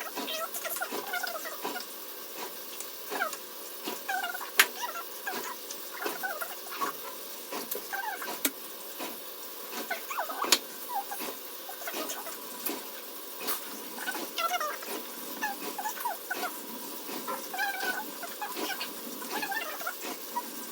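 Small animal squeaking and chirping in many short, quick calls, with scattered sharp clicks.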